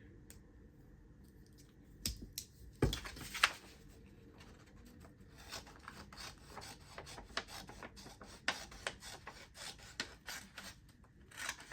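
Small spring-loaded scissors of a Victorinox Swiss Army knife cutting paper: a long run of quick snips with paper rustling, starting about two seconds in.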